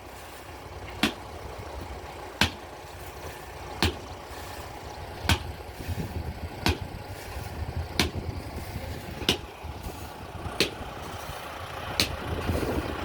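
Excavator diesel engine idling with a steady low rumble, under a sharp click that repeats evenly about every second and a half.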